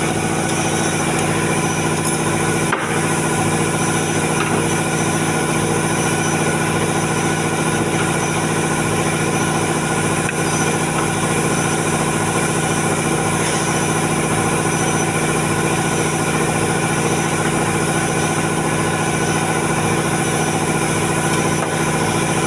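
A machine running steadily with an unchanging hum, and a sharp click just under three seconds in.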